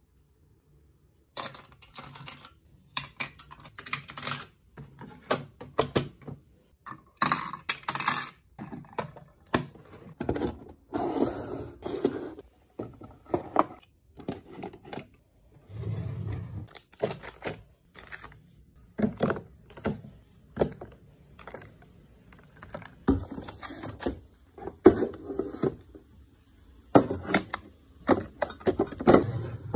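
Small items being picked up, moved and set down in a dresser drawer: a string of irregular clicks, knocks, light clatter and scrapes of plastic and metal, beginning about a second and a half in.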